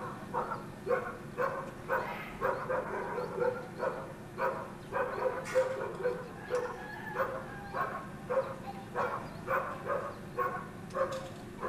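A dog barking over and over, short barks about two a second.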